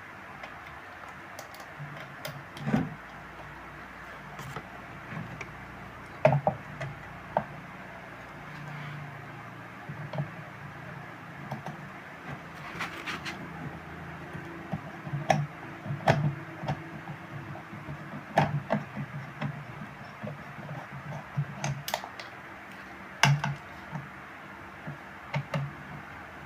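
Irregular clicks and light knocks, a few of them sharper and louder, from parts and tools being handled, over a steady low background hum.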